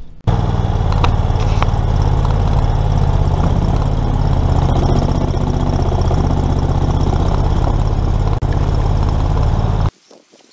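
Longtail mud motor on a duck boat running under way at steady speed, pushing the boat across the marsh. The engine sound starts and stops abruptly.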